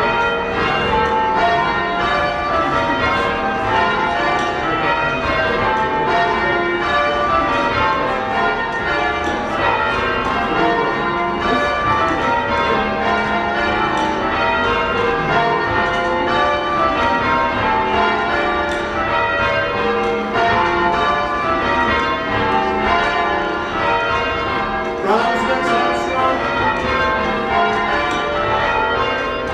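Church bells being change-rung by a full band on rope-pulled tower bells, heard from the ringing room below: a steady, unbroken stream of bell strikes one after another in a rapid even rhythm.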